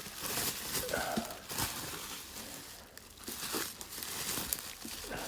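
Packing material being crinkled, rustled and torn as a well-packed parcel is unwrapped: irregular crackling and tearing with many sharp snaps.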